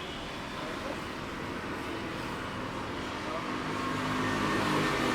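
Street traffic noise that grows louder over the last couple of seconds, with indistinct voices underneath.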